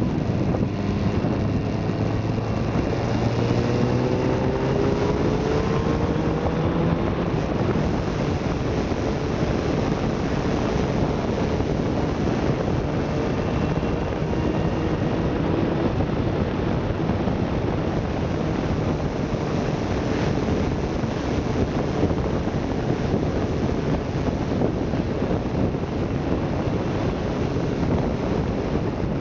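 Motorcycle riding at road speed: a steady rush of wind on the microphone over the engine. A few seconds in, the engine note rises as the bike accelerates.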